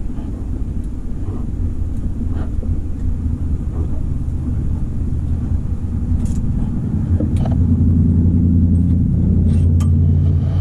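A motor running with a steady low hum that grows louder in the second half, with a few faint metallic clinks.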